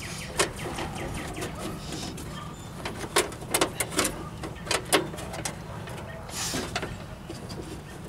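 Sharp metallic clicks and clacks of the latch rods and inside latch mechanism being worked by hand inside a steel Jeep CJ door, a handful of them, most bunched about three to five seconds in, with a short scrape near the end.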